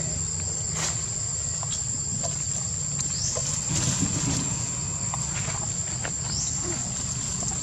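Steady high-pitched drone of insects, with scattered crackles of dry leaves as a baby macaque handles a husk and scampers over the leaf litter, and two short rising chirps about three and six seconds in.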